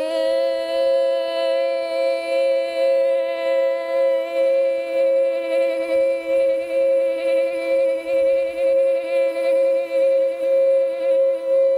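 Frosted quartz crystal singing bowl rubbed around its rim with a wand, giving a steady, slightly pulsing tone. A woman's voice holds one long sung note a little below the bowl's pitch.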